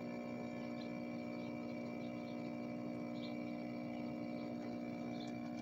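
Steady electrical hum made of several constant tones, with a few faint light ticks.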